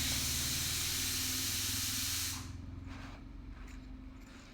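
A steady hiss over a low hum that cuts off abruptly a little over two seconds in, leaving only a few faint light clicks.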